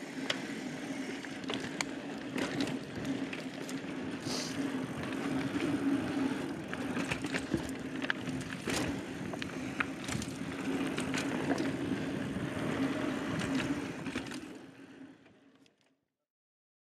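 Mountain bike ridden along a dirt forest singletrack: steady tyre-on-dirt and drivetrain noise with scattered clicks and rattles from the bike, fading out near the end.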